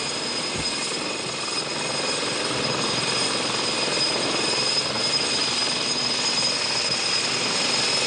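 Westland Navy Lynx helicopter's twin Rolls-Royce Gem turboshaft engines running under power with the rotor turning. A steady high turbine whine sits over dense engine and rotor noise that grows slightly louder.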